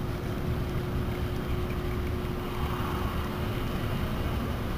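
Wind rumbling on the microphone over the steady hum of a bass boat's electric trolling motor.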